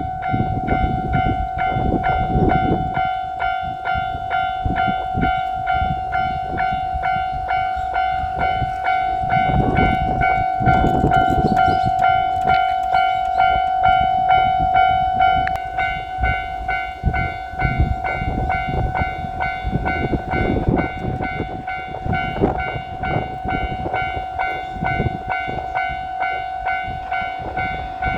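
Japanese level-crossing warning bell ringing on and on with an evenly repeating clang, while a train runs through the crossing with a low rumble of wheels on the rails that swells and fades.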